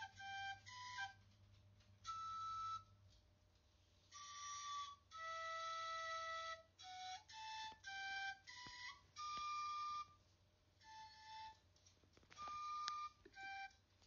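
Solo flute music: a slow, breathy melody of separate held notes in short phrases with brief pauses between them.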